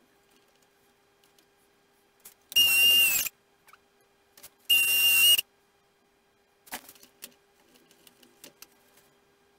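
Aerosol spray can sprayed in two short bursts, each under a second: a hiss with a thin whistle running through it. A few light clicks and taps of handling follow.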